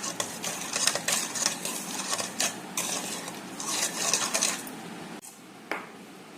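Metal utensil scraping and clinking against cookware in quick, irregular strokes, as in stirring, then one last clink near the end.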